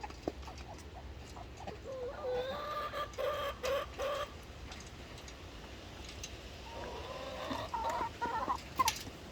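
Domestic chickens clucking: a run of calls about two seconds in and another, longer one near the end, with a sharp click just before the end.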